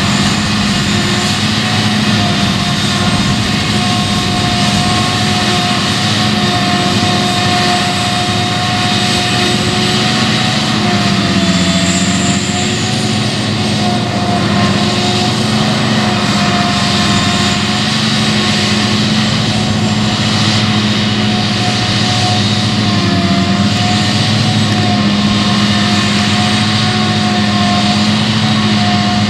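Claas Jaguar self-propelled forage harvester at work chopping rye: a steady engine and chopper drone with a high whine. The pitch dips briefly about eleven seconds in and again around twenty-three seconds.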